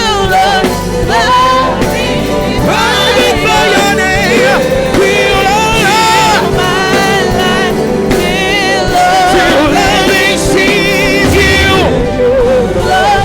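Gospel worship music: voices singing long, wavering, vibrato-laden lines over sustained instrumental accompaniment.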